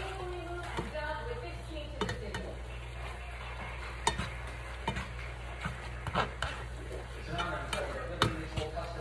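Ground turkey frying and sizzling in a pan while a spatula stirs and scrapes it, knocking sharply against the pan about eight times.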